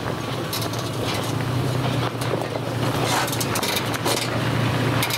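Toyota FJ Cruiser's 4.0-litre V6 running at low revs as the lifted SUV crawls over rocks, with a steady low drone. Its tyres crunch and crackle over the rock and gravel.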